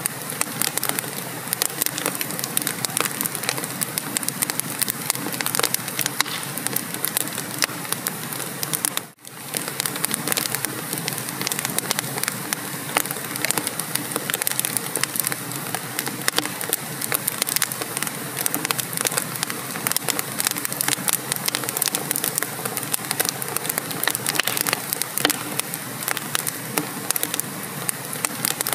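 Wood fire burning in a fireplace, crackling and popping steadily with many small snaps. The sound cuts out for a moment about nine seconds in, then carries on.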